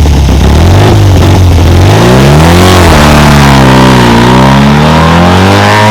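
Classic Fiat 500 Abarth replica's air-cooled two-cylinder engine revving loudly. The note holds low for about two seconds, then rises, drops back, and climbs slowly again.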